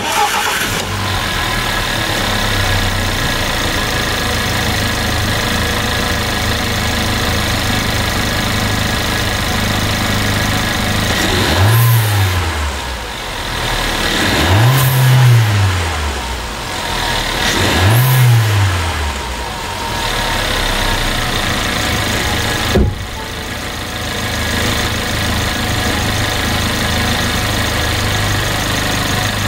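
An Audi 1.4 TFSI four-cylinder petrol engine starts and settles into a steady idle. It is its first start-up after the intake manifold and throttle body seals were replaced. The throttle is blipped three times about halfway through, the engine note rising and falling each time, then it returns to idle, with one sharp knock shortly after.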